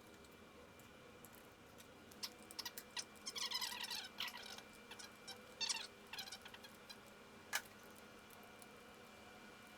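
Small parts and hand tools handled during scooter engine-case repair work: a run of faint clicks and light scraping, then one sharper click near the end, over a steady low hum.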